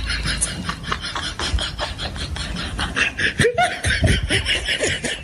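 A person laughing in quick, breathy snickers.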